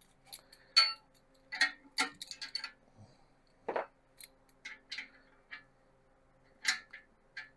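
Scattered metallic clicks and clinks of hand tools and fasteners on a classic VW Beetle steel front axle beam as the centre grub screws and their locking nuts are worked loose.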